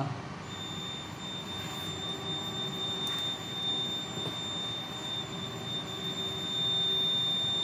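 Fire alarm control panel's electronic buzzer sounding one steady, high-pitched tone that starts about half a second in and holds without a break.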